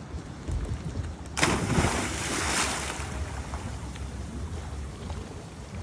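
A person jumping off a boat into the sea: a loud splash about a second and a half in, then the water churning and fading, over a low steady rumble.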